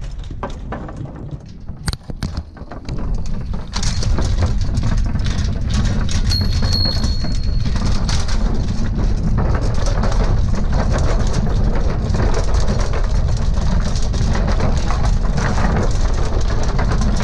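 Bicycle wheels rolling fast over a bridge deck. About four seconds in, a loud, continuous rattling rumble sets in and holds steady: the noise the bridge makes under a bike ridden over it.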